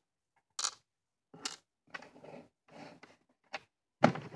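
A handful of short clicks and rustles, irregularly spaced, from small shells and beads being handled and set down on a work table.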